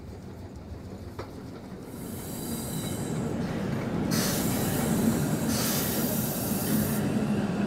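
Historic steam train with wooden carriages rolling along a station platform, its rumble growing louder as the wagons pass. From about four seconds in come two long bursts of hissing.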